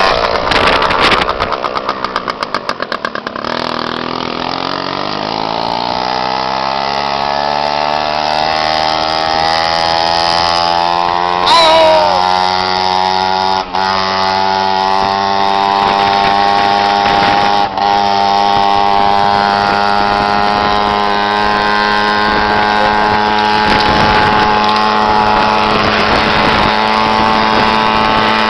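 Moped engine pulling up to speed: its buzz climbs in pitch over the first few seconds, then holds a steady high note at cruising speed, with a brief louder, higher sound about eleven seconds in.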